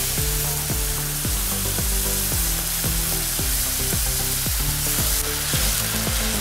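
Liquid hissing and sizzling hard as it boils up in a hot wok of fried chilli-oil aromatics, stirred with a wooden spatula. Background music plays underneath.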